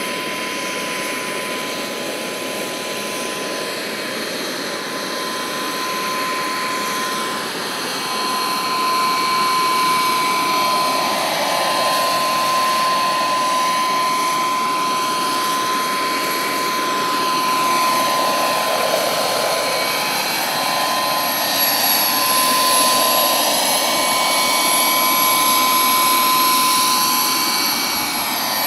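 Vario XLC Carrier model helicopter's 8 kW turbine engine running with a steady whine, together with the noise of its main rotor as it hovers and moves low over the ground, growing louder from about eight seconds in.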